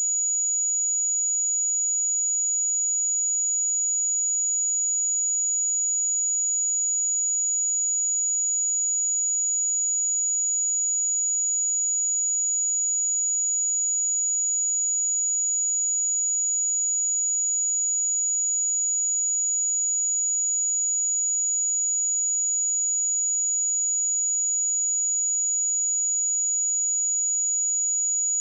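A pure 6843 Hz sine-wave test tone, one steady high-pitched whistle-like tone held at a constant level without a break.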